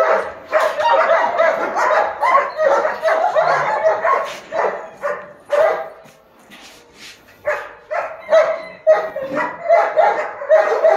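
German shepherd dogs barking over and over in quick succession. The barking breaks off for about a second around six seconds in, then starts again.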